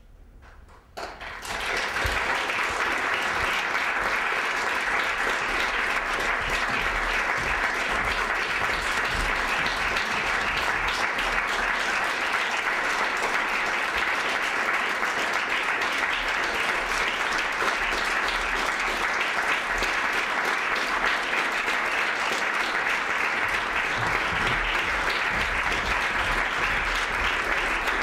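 Theatre audience applauding. The clapping starts suddenly about a second in, out of quiet, then stays steady and dense.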